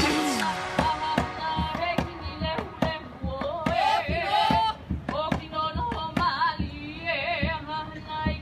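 Live Hawaiian song accompanying a hula dance: a singer with a sliding, wavering melody over a steady beat of sharp percussive knocks.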